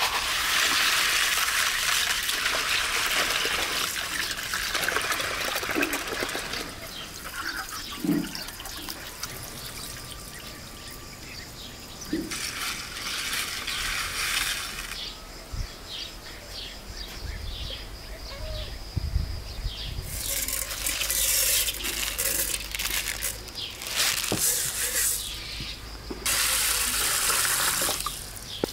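Water running from a tap and splashing over grain being rinsed in a plastic basin, in several bursts of a few seconds each, with a few light knocks of handling between them. Near the end, water is poured into an aluminium pot of grain.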